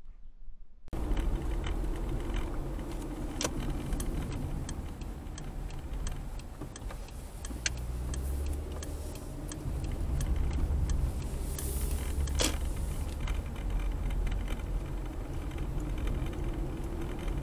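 Car driving at low speed, heard from inside the cabin: a steady low rumble of road and engine noise with scattered small clicks and rattles. It starts about a second in.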